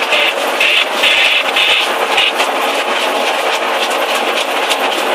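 Diesel engine of a CAT 320DL amphibious excavator running steadily. Short bursts of higher-pitched hiss come and go in the first couple of seconds.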